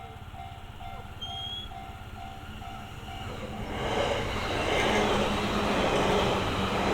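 Japanese level-crossing warning bell, an electronic clang repeating about twice a second. About three and a half seconds in, an approaching electric train's rushing noise swells up and drowns it out, with a steady low hum underneath.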